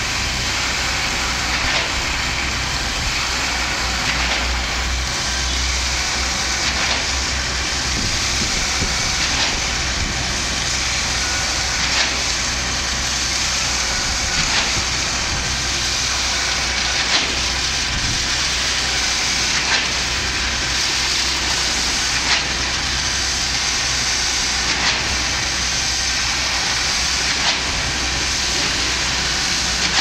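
Concrete pump running steadily while pumping concrete through its delivery hose, with a low rumble and a knock about every two and a half seconds as the pump changes stroke.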